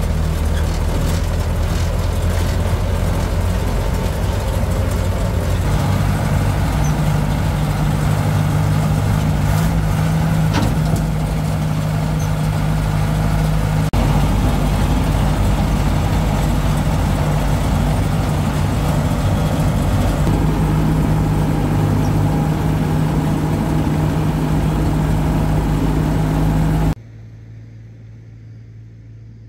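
Engine of a homemade bamboo-carrying truck running steadily while driving, its pitch stepping up about six seconds in. It cuts off suddenly near the end, leaving a much quieter background.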